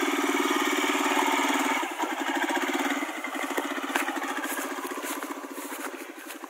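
Royal Enfield Himalayan's single-cylinder engine running at low revs, with a steady beat of firing pulses. It is loud close by at first, then drops after about two seconds and fades as the motorcycle rides away across rough grass.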